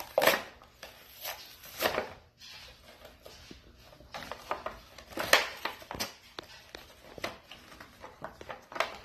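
Plastic and cardboard toy packaging being pulled apart and handled: irregular crinkles, tearing and knocks, loudest just after the start, at about two seconds and a little past five seconds.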